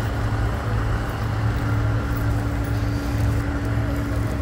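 Steady low mechanical hum with one constant tone running through it.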